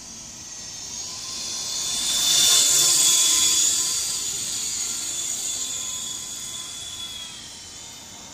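MJX F45 radio-controlled helicopter's electric motor and rotor whining high-pitched as it flies, swelling loud as it passes close about two to three seconds in, then fading away.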